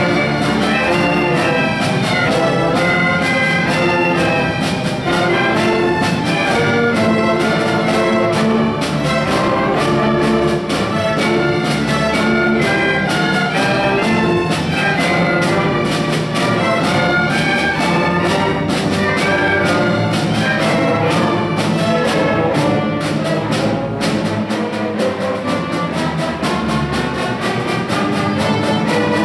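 Symphonic orchestra playing live, with strings, woodwinds and brass sounding together in a full, steady passage.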